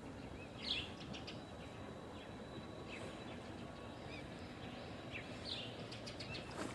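Small birds giving short, high chirps several times over a steady outdoor background noise.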